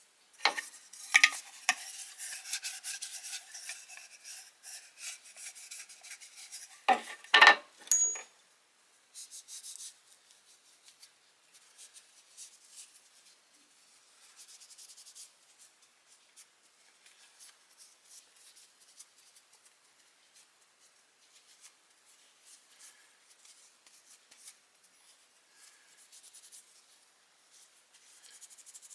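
Metal being scrubbed and rubbed while the small pipe wrench is cleaned. A louder stretch with a faint steady tone and sharp knocks about a second in and about seven seconds in gives way to quieter, irregular scratching strokes.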